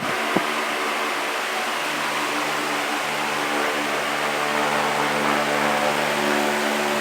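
Vitalex Turbolex 60 cm 200 W wall fan running: a steady rush of air with a low motor hum that strengthens about two seconds in. There is a single click near the start.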